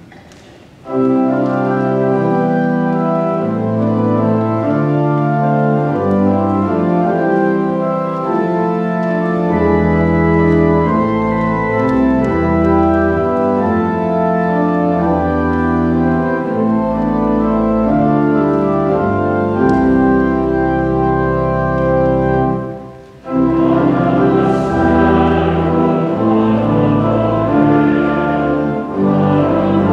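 Church organ playing a hymn introduction in sustained full chords with a moving bass line. A little over 20 seconds in it breaks off briefly, then starts again as voices join in singing the hymn.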